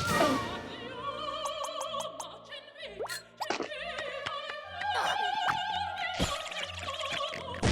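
Cartoon soundtrack: a warbling, opera-like voice with strong vibrato over music, dotted with short clicks and a couple of quick sliding sound effects near the middle.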